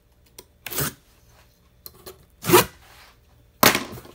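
Packing tape on a cardboard box being slit open with a metal tool, in three short strokes.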